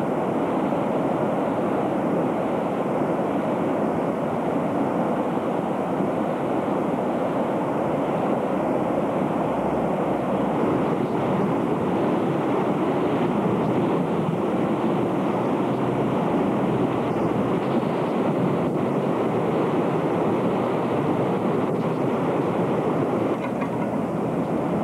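Steady rushing roar of a brook in flash flood, with muddy floodwater pouring fast over its banks.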